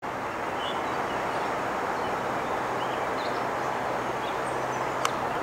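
Steady rushing of water at the dam, with small birds chirping faintly above it and a single sharp click about five seconds in.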